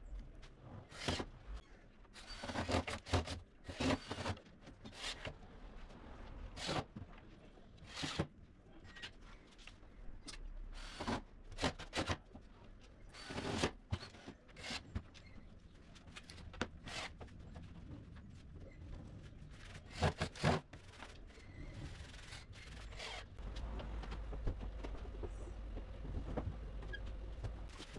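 Irregular knocks, clicks and scrapes of furniture parts and small plastic fittings being handled on a wooden workbench during cabinet assembly. A low steady rumble sits underneath near the end.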